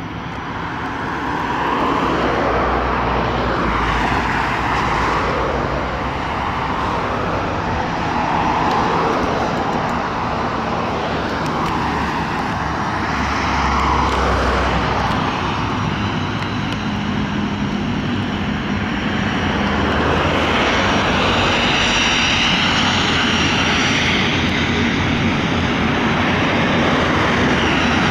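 Boeing 737-400 jet engines (CFM56-3 turbofans) running loud and steady, with a slow wavering whoosh. The sound swells about a second in, and a higher whine grows stronger about twenty seconds in.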